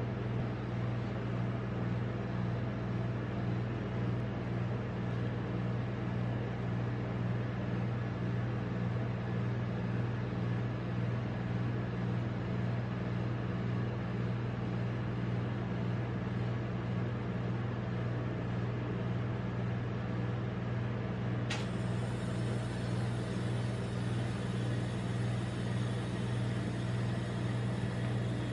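Steady low hum of a rolled-ice-cream machine's refrigeration unit running under its cold steel plate, with one sharp click about three quarters of the way through.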